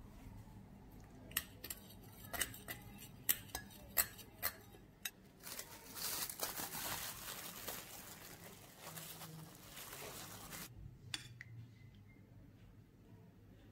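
A spoon clinks sharply against a glass bowl about nine times while flour and spices are mixed for a seasoned coating. Then plastic cling film crinkles for about five seconds as it is peeled off a bowl, stopping abruptly. There is one more light clink near the end.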